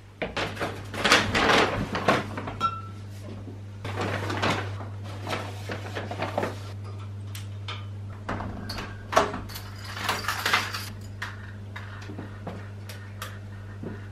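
Household handling noises: a run of knocks, clatters and rustling, like cupboards or doors being opened and shut, over a steady low hum.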